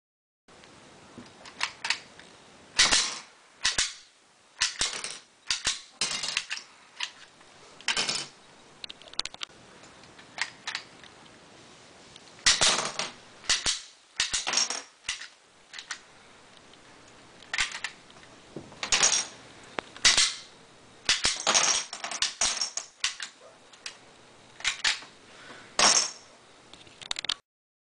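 Lego rubber-band pistol with a working blowback slide being fired again and again: a long run of sharp plastic clacks at uneven intervals, some in quick clusters.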